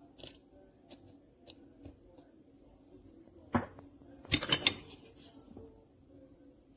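A few light clicks, then a sharp knock about three and a half seconds in and a quick clatter of several knocks about a second later.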